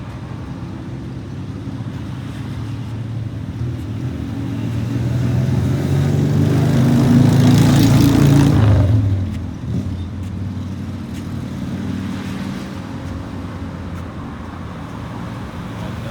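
Road traffic: a steady engine hum, then a vehicle passing close by that grows louder over several seconds, is loudest about eight seconds in, and falls away quickly just after.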